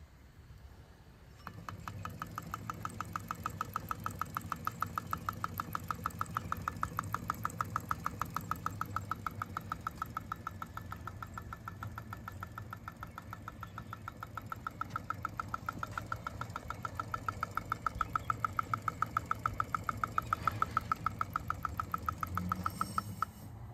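Kyko hot air (Stirling) engine running steadily, its moving parts making a fast, even ticking several times a second over a low hum. The sound starts about a second and a half in and stops abruptly near the end.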